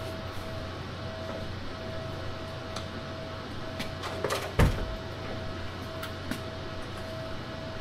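Heavy LG RESU16H Prime battery module being set down onto its stack: a few light clicks and knocks from its casing, then one heavy thump a little past halfway as it seats, and a couple more clicks after. A steady low hum runs underneath.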